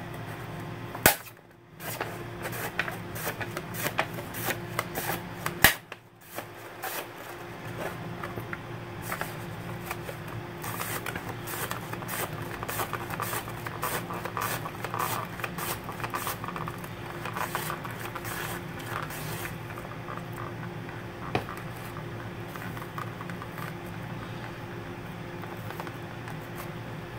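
Onion half being slid back and forth across a plastic mandoline slicer's blade to cut thin slices, making a quick, irregular run of crisp cutting clicks, with two louder knocks about a second in and about six seconds in. The strokes thin out over the last several seconds, over a steady low hum.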